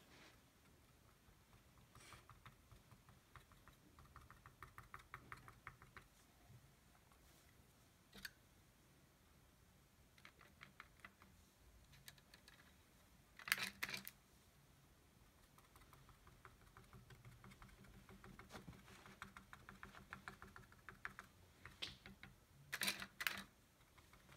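Cotton swab dabbed quickly on a canvas panel to lay down paint dots: faint runs of light taps, several a second. A few louder clicks stand out, two clusters about halfway and near the end.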